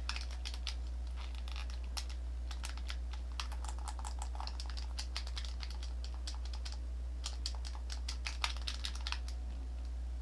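Plastic buttons of a Sony DualShock 3 controller being pressed in quick, irregular runs of clicks, sparser in the middle.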